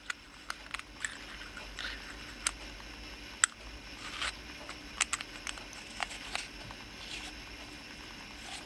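Small metal and glass parts of an OBS Engine-series rebuildable tank atomizer being handled and screwed together: scattered light clicks and ticks with soft scraping, the sharpest click about three and a half seconds in.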